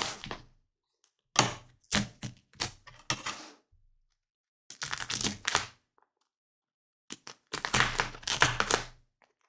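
Small scissors snipping basting stitches on a table runner, a run of short, sharp clicks between about one and a half and three and a half seconds in. Then two longer stretches of fabric rustling, as the cut thread is pulled out, around five seconds and again near the end.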